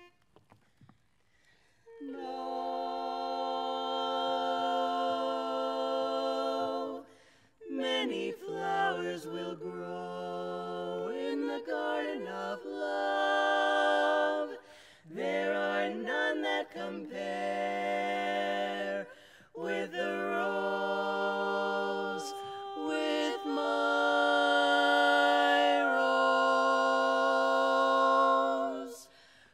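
Women's barbershop quartet singing a cappella in four-part close harmony. The singing starts about two seconds in, with long held chords broken by short pauses between phrases.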